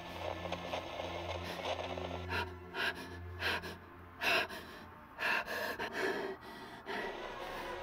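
A steady low drone, then from about two and a half seconds in a run of short, sharp gasping breaths from a man.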